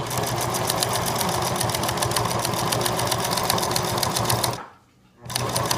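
Electric sewing machine stitching a straight seam through layered cotton at a steady speed, the needle clattering in rapid, even strokes. It stops a little over four and a half seconds in, then runs again briefly near the end.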